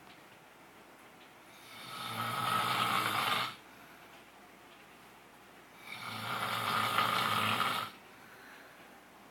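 A sleeping man snoring heavily: two loud snores about four seconds apart, each building up over about two seconds and then cutting off abruptly, with quiet breathing gaps between.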